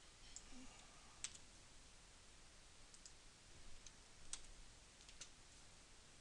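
Faint clicks of a computer mouse and keyboard, about a dozen scattered over near silence, several in quick pairs.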